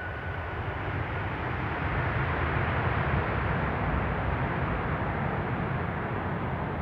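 Jet engine roar from a landing Airbus A330-200 with Rolls-Royce Trent 700 engines during its rollout after touchdown, swelling about a second in to a peak around three seconds, then easing slightly.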